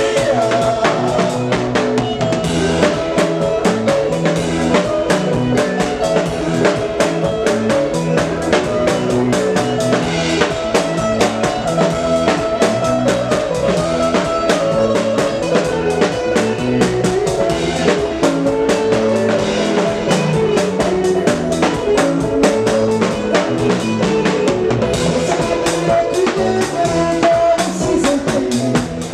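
Live band music: a drum kit keeping a steady beat under electric bass and keyboard.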